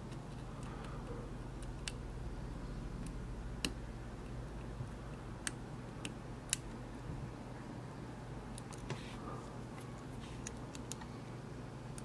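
Scattered, irregular small clicks of a steel hook pick working the pin stacks inside a seven-pin Assa Abloy hospitality lock cylinder under tension, two of them louder, over a steady low hum.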